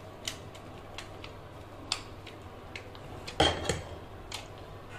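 Scattered light clicks and clinks of small metal tools being picked up and set down on a workbench, with one louder knock about three and a half seconds in, over a low steady hum.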